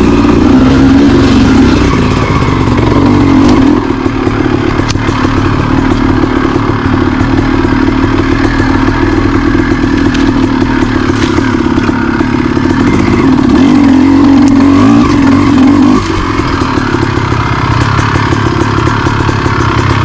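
Honda CR250R two-stroke dirt bike engine running under throttle on rough singletrack, easing off briefly about four seconds in and again near the three-quarter mark, with occasional clatter.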